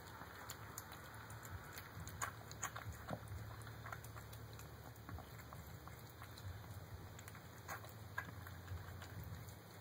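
A cat eating from a bowl: irregular short clicks of chewing and mouthing food, over a low steady hum.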